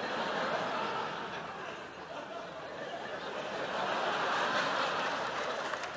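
Audience laughing, dipping about two seconds in and swelling again before fading.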